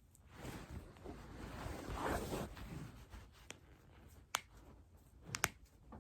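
Rustling of body and clothing movement, then a series of short sharp pops of joints cracking: one, then another, then two in quick succession near the end.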